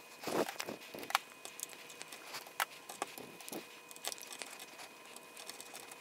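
Scattered, irregular clicks and taps of solid-core jumper wires being pushed into and pressed down on a plastic solderless breadboard.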